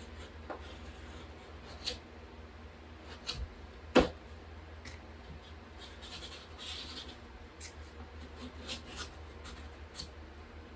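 Utility knife scoring drywall paper in short scraping strokes, with scattered light clicks and one sharp knock about four seconds in.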